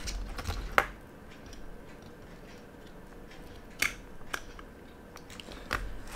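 A few sharp little clicks and taps from a steel watch case and its link bracelet being handled on the workbench, the loudest about a second in, over a faint rustle of fingers.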